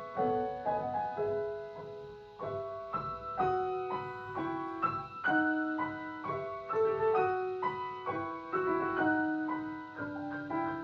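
Solo piano music, single notes and chords struck about two to three times a second, each fading away.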